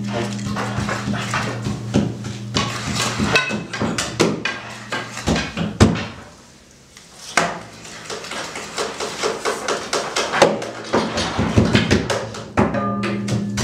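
Free-improvised percussion on metal junk and cymbals: dense, irregular clattering and clanking, which thins out briefly about halfway through before it builds again. A low held tone sounds at the very start and comes back near the end.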